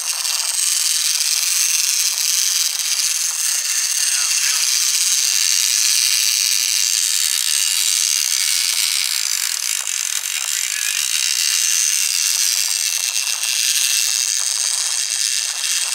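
Large lever-drag trolling reel being cranked to bring in a hooked fish, its gears rattling, over a steady loud rushing hiss of the boat's churning wake.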